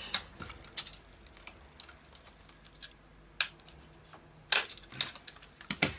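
A stapler being worked on paper and card: a few sharp clicks and snaps with light paper handling between them, the loudest about three and a half and four and a half seconds in.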